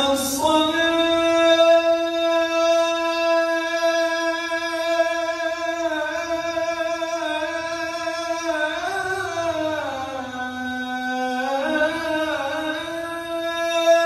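A man's solo voice chanting the adhan, the Islamic call to prayer, drawing out one long melismatic note: steady for several seconds, then a turn of ornament that dips lower about ten seconds in before rising back to the held pitch.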